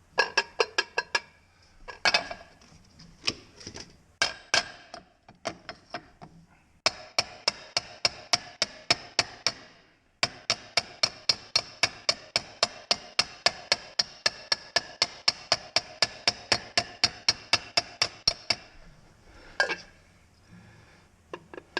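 Hammer blows on a bowed metal part laid on a railroad-tie section in a bench vise, flattening it. Each blow rings with a metallic tone. A few uneven strikes come first, then a long, fast, even run of about four blows a second, then a couple of final taps.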